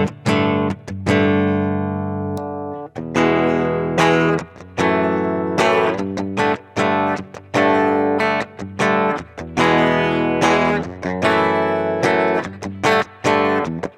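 Gibson Studio electric guitar played completely clean through a Marshall amp's clean channel, taken from the amp's DI out with no effects, not even reverb. Picked chords and arpeggios: a long ringing chord near the start, then a run of quicker plucked notes and chords.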